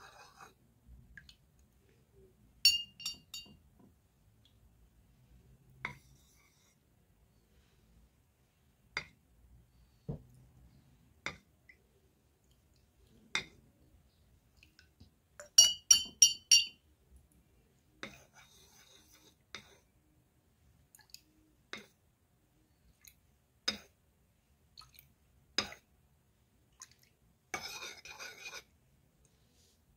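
Metal spoon clinking and scraping against small paint bowls while stirring acrylic paint: scattered single clinks, a quick run of ringing clinks around the middle, and stretches of scraping near the end.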